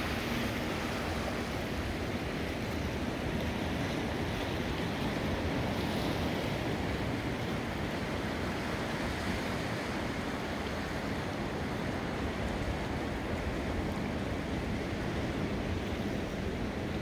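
Steady wash of surf and moving water against a rock breakwall, with wind buffeting the microphone.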